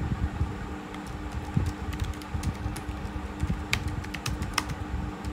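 Typing on a computer keyboard: a run of irregular key clicks as a word is typed out, the clicks coming faster near the end.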